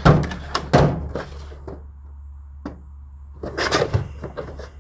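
Hand tools and a toolbox drawer being handled: scattered sharp clicks and knocks of tools clattering, with a quick cluster of rattles near the end.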